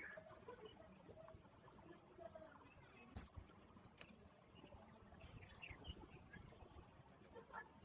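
Faint steady high-pitched insect drone, with faint distant voices and a sharp click about three seconds in.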